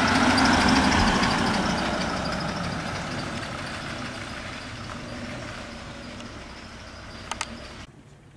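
A van's engine running as it pulls away close by and drives off, loudest at first and then fading steadily as it recedes. A couple of short clicks near the end.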